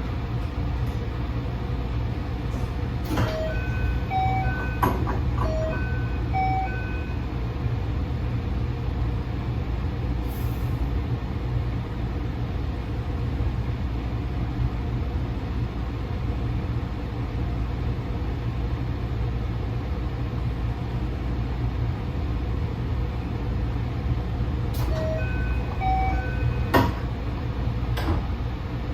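JR West-type train door chime: a short run of pitched electronic notes, played a few seconds in and again near the end, over the steady low hum of a standing train car. A sharp knock comes near the end.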